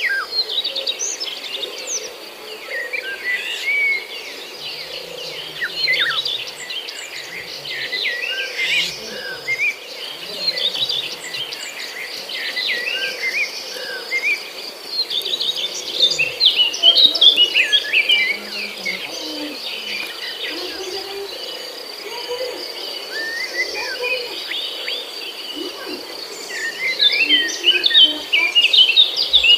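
Birds chirping and calling in many short notes over a steady high-pitched insect trill; the chirping gets busier around the middle and near the end.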